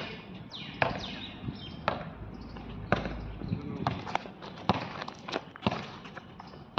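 A basketball bouncing on a hard outdoor court: sharp, separate bounces about once a second as it is dribbled.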